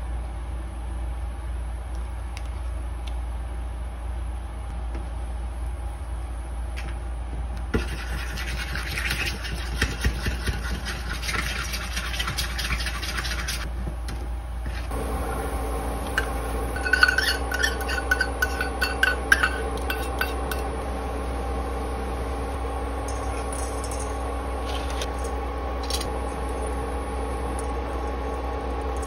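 A metal spoon scraping and stirring thick sauce round a small stainless steel bowl for several seconds, starting about a quarter of the way in. From about halfway, an induction cooker gives a steady electrical hum, with a burst of metal clinks against the pot soon after.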